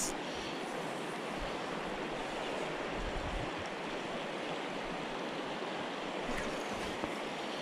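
Fast-flowing river rushing steadily past rocks and a log-and-stone bank.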